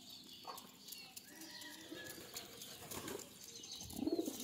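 Pigeons cooing softly at a feeding flock, growing louder near the end, with faint clicks.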